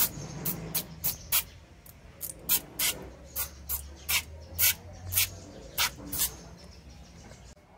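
Aerosol foam can spraying foam in about fifteen short, uneven hissing spurts, which stop a little after six seconds in.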